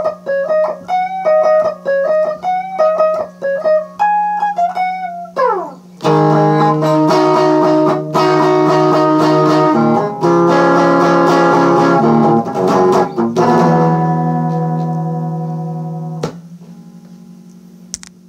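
Acoustic guitar playing a picked single-note riff over a steady low drone, then a quick glide down in pitch into loud strummed chords. The last chord rings and fades, then is muted suddenly, leaving a faint click near the end.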